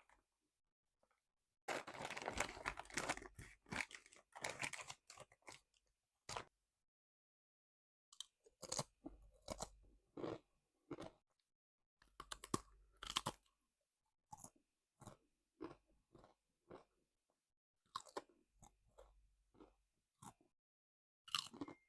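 Close-up crunching and chewing of crisp packaged snack chips, in irregular bursts of bites and chews with silent gaps between them; the busiest crunching comes a couple of seconds in.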